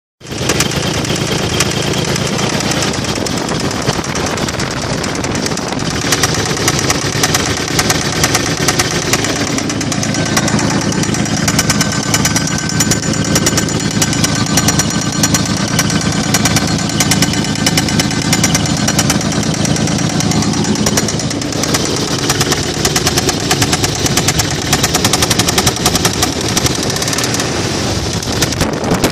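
1995 Toyota 4Runner's 3.0-litre V6 running with a loud, rapid, continuous knocking from the bottom end. It is rod knock, a connecting rod loose on the crankshaft.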